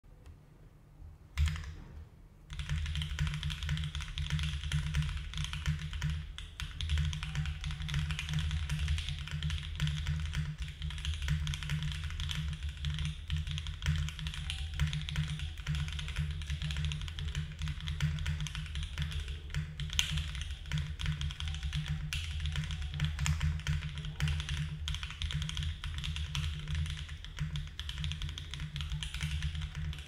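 Fast typing on a Neo70 mechanical keyboard with Mode Obscura linear switches, an aluminum plate, no case foam and GMK Serika ABS keycaps: a dense, continuous run of keystrokes. A single sharp click comes about a second and a half in, and the typing starts about a second later.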